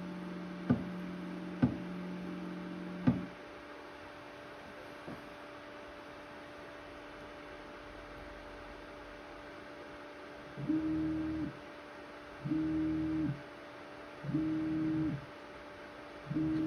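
Tronxy ceramic 3D printer's clay-extruder stepper motor humming with a sharp knock about once a second, stopping about three seconds in. Near the end, four short motor whirs come about two seconds apart as the printer is jogged from its manual-control screen.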